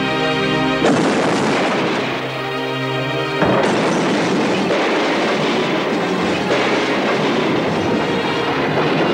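Dramatic music is cut about a second in by a sudden crash. A second, louder impact follows after about three and a half seconds, then a continuous crashing noise as a car tumbles down a rocky slope.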